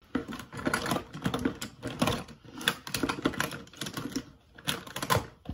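Close, rapid tapping and clicking in irregular runs with brief pauses, the kind of tapping sound played as ASMR.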